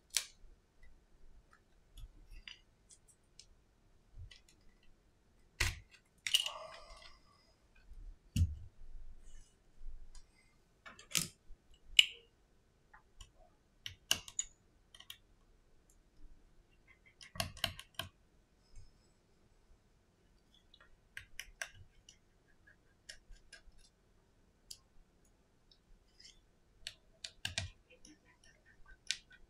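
Irregular small clicks and taps of fingers handling an opened iPhone 7 and its internal parts during a battery replacement, with a short rustle about six seconds in.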